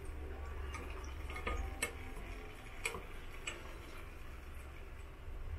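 Wooden chopsticks clicking against a stainless steel pot as fried garlic cloves are picked out of the oil: a few sharp, separate taps over a low steady hum.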